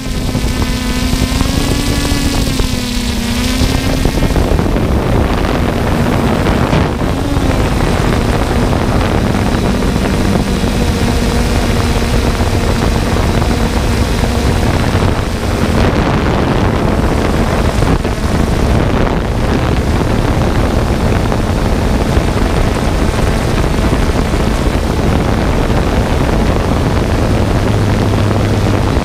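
3DR Solo quadcopter's motors and propellers buzzing as it takes off, their pitch wavering up and down over the first few seconds. It then settles into a steady hum in flight.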